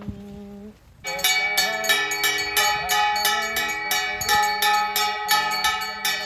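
A held, steady tone stops under a second in; then temple bells ring rapidly, about four strokes a second, with wavering pitched tones of music under them, marking the final offering (maha ahuti) of the homam.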